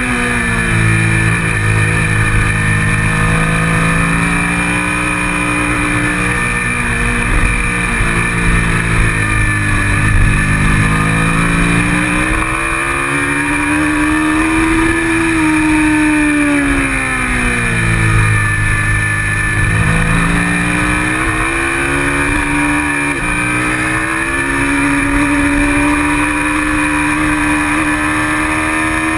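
Kawasaki Ninja 650R's parallel-twin engine heard from a GoPro mounted on the bike at racing speed, its pitch climbing under acceleration and dropping several times as the rider brakes and shifts for corners. A steady rush of wind runs over the microphone underneath.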